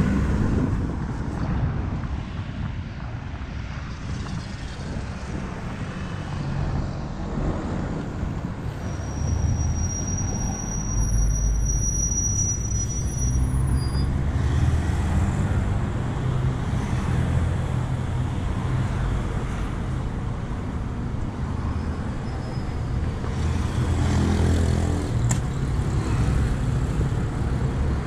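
City bus engines running at a bus stop amid road traffic: a steady low rumble as one bus passes and another idles while passengers board. A thin high whine sounds for a few seconds about a third of the way in, and an engine swells near the end.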